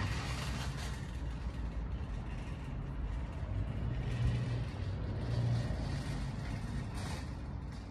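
Steady low rumble of road traffic, with a fainter hiss over it.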